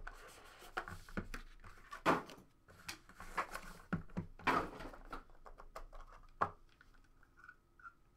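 Hands handling a cardboard trading-card box and clear hard-plastic card cases: scattered rustles, scrapes and plastic clicks, with a sharp click about six and a half seconds in.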